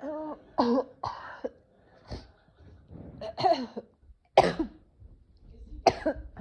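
A woman coughing and clearing her throat in a string of about seven short coughs, some of them voiced, the loudest two coming past the middle and near the end.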